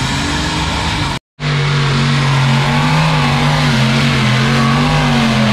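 Pulling tractor's engine running loud and hard under load, its pitch wavering and rising slightly. The sound drops out for a moment about a second in, then carries on.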